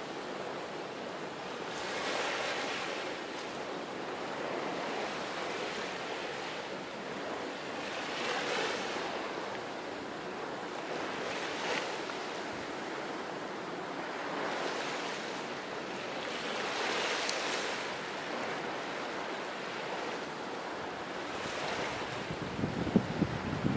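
Small ocean waves washing onto a sandy beach, the surf swelling and fading every few seconds. Near the end, wind buffets the microphone in a few low rumbles.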